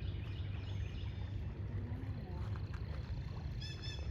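Outdoor background: a low wind rumble on the microphone, with faint bird chirps and a quick pair of sharp bird calls near the end.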